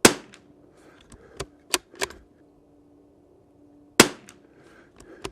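Two shots from a Tikka T1X .22 rimfire bolt-action rifle, about four seconds apart. A few sharp clicks in between come from the bolt being worked to chamber the next round.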